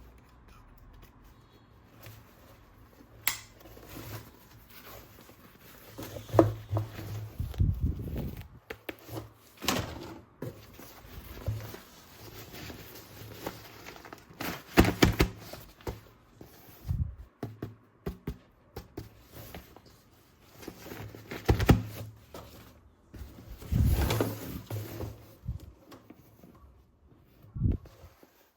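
Toy weapon set pieces and packaging being handled: irregular plastic clicks and knocks with a few louder thuds.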